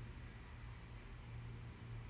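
Faint room tone: a steady low hum with light hiss.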